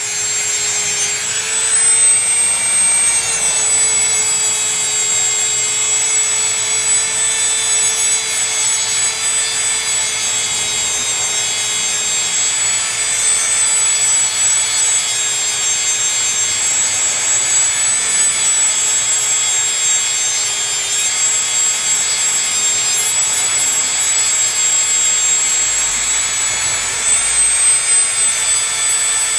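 Dremel 100 rotary tool running with a steady high whine, its bit grinding and scratching layers of old paint off a composition doll arm.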